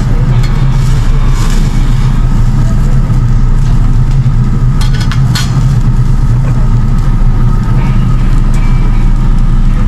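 Steady low hum of ventilation at a tabletop yakiniku grill, with two sharp clicks of metal tongs on the grill about five seconds in.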